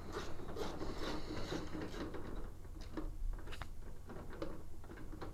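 Scattered light clicks and soft rustling over a low background hum.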